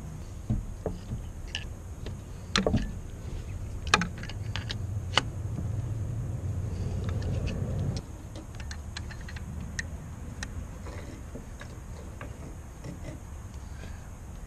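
Scattered light metallic clicks and taps from a brass oil-feed T fitting and hand tools being handled and threaded into the oil pressure sensor port of a Subaru EJ25D aluminium engine block. A low steady rumble runs underneath through the middle and cuts off at about eight seconds.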